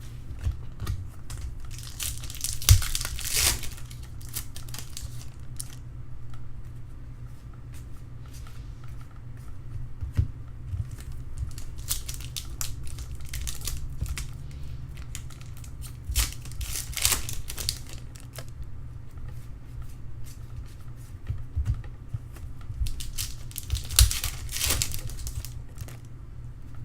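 Trading card pack wrappers being torn open and crinkled by hand, in several rustling bursts of a second or two, with small clicks of cards being handled, over a steady low hum.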